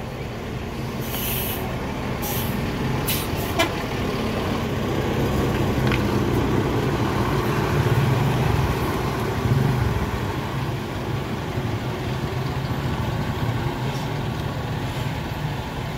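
Heavy vehicle's engine running close by, a steady low rumble that grows louder around the middle, with several short air-brake hisses in the first few seconds.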